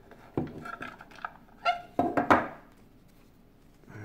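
Clear hard-plastic card box knocking and clattering on a wooden tabletop as a stack of trading cards is slid out of it. A handful of short sharp knocks, the loudest pair about two seconds in, then quiet.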